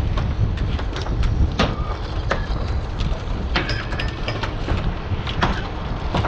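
Steady low rumble of the dredge boat's engine with some wind on the microphone, and irregular sharp clacks of oyster shells knocking together as the dredged oysters are culled by hand on the culling board.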